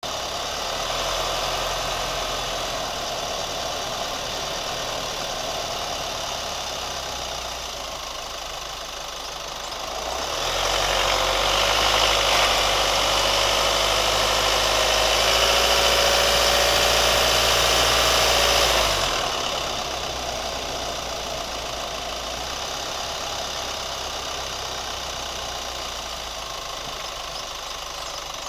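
Chevrolet Colorado pickup's engine running steadily with a ticking noise, which the owner is recording as a fault. It gets louder for about eight seconds in the middle, then settles back.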